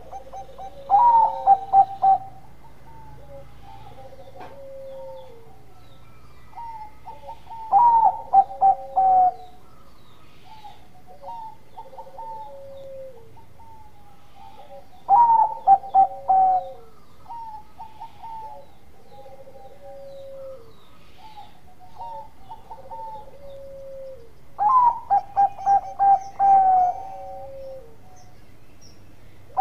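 Caged zebra dove (Bangkok-bred perkutut) singing its cooing song in four loud phrases, each a quick run of staccato coos lasting a second or two, spaced several seconds apart. Softer, lower coos come in between the phrases.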